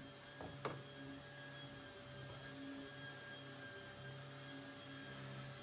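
Faint steady hum with a few even pitches, and two light clicks about half a second in.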